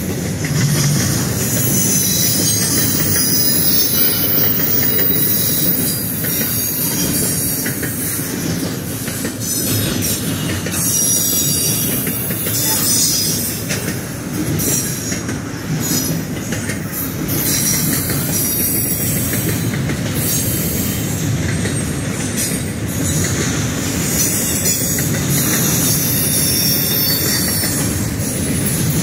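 CSX double-stack intermodal train, container-laden well cars rolling past at speed: a steady rumble of steel wheels on rail, with high-pitched wheel squeal that swells and fades.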